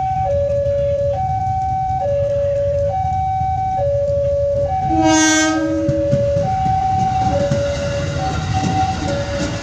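Level-crossing warning alarm alternating steadily between two tones. About halfway through, an ex-JR 205 series electric commuter train sounds a short horn blast as it reaches the crossing, and then the noise of the train passing over the crossing builds.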